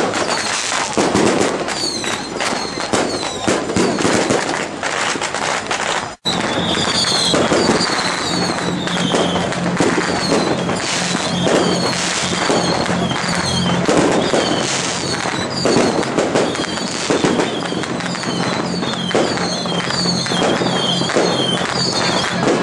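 A string of firecrackers crackling continuously and densely, broken once by a brief gap about six seconds in.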